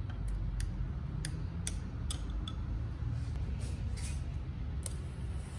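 A straw stirring a milk drink in a tall drinking glass, making light, scattered clinks against the glass, most of them in the first couple of seconds. A steady low hum runs underneath.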